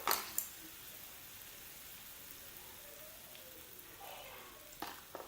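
Thin-sliced lamb sizzling on a grill, a steady hiss, as more meat is laid on. A few sharp clicks of utensils sound just after the start and again near the end.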